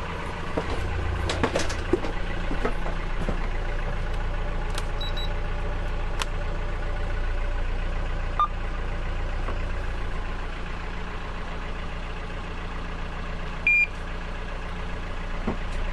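Sailboat's inboard engine idling with a steady low drone, with scattered light clicks and a short electronic beep near the end.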